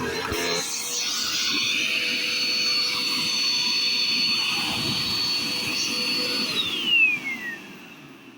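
Upright vacuum cleaner motor running with a steady high whine. About six and a half seconds in it is switched off, and the whine falls away as the motor winds down.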